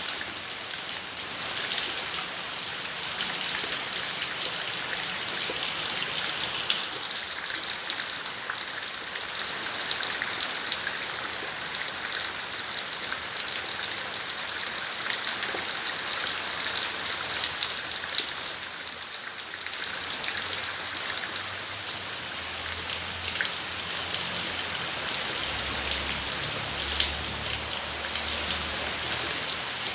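Steady rain falling, with many single drops ticking close by. A low rumble comes in during the last few seconds.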